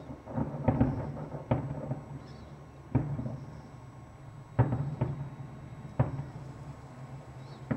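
Aerial firework shells bursting some way off: a quick cluster of booms in the first second and a half, then single booms every second or so, each trailing a short echo.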